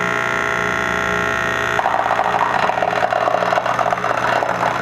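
Metal disintegration machine running with a steady electrical hum. About two seconds in, the electrode starts burning into the broken easy-out and bolt, and the hum turns into a dense crackling buzz.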